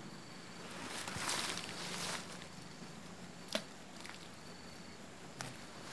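Rustling from an angler handling a fishing rod and reel among riverbank plants, with two sharp clicks, one midway and one near the end.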